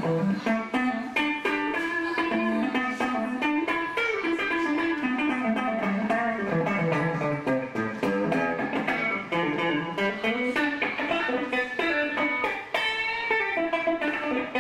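Electric guitar played live: a quick line of single notes that climbs and falls in pitch again and again.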